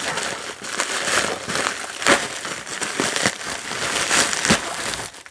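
Packaging of a brake caliper rebuild kit crinkling and rustling as the parts are handled and unpacked, with irregular crackles and a few sharper ones.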